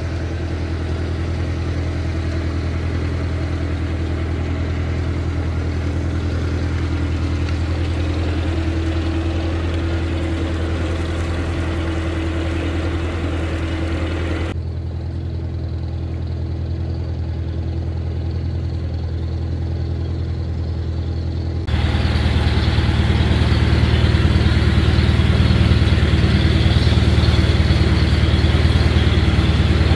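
Narrowboat's diesel engine running steadily at low revs, a low, even hum. About three-quarters of the way through it turns suddenly louder and fuller as the boat enters a tunnel.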